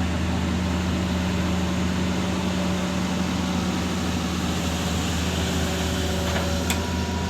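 Excavator's diesel engine running steadily with a constant low hum; faint higher steady tones join in during the last couple of seconds.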